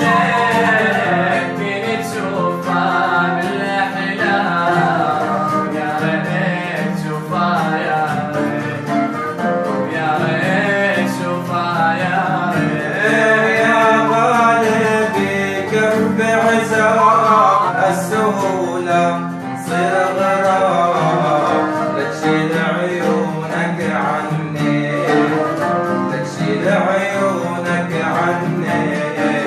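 A man singing an Arabic song in long, wavering ornamented lines over a plucked-string accompaniment.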